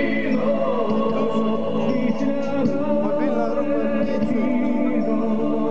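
Choral music with singing, played loud over loudspeakers: the concert put on to drown out a rally's speeches.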